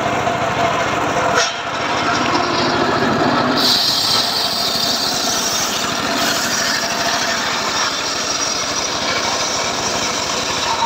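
Homemade engine-driven circular sawmill cutting through a teak log, blade and engine running steadily. There is a short dip about a second and a half in, and the cutting noise turns higher and harsher from about three and a half seconds.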